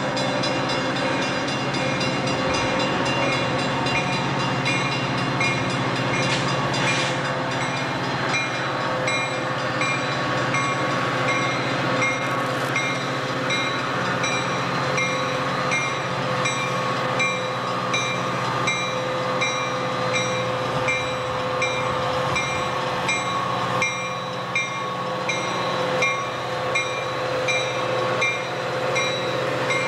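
Metra commuter train passing, its F40PH diesel locomotive's engine running steadily as it draws near and goes by. A high ringing strike repeats about every two-thirds of a second throughout, typical of the locomotive bell.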